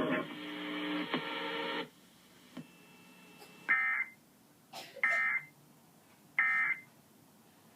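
A sustained multi-pitched sound cuts off about two seconds in, followed by three short buzzing data bursts of Emergency Alert System end-of-message tones, each about half a second, roughly a second and a half apart: the digital code that closes the alert.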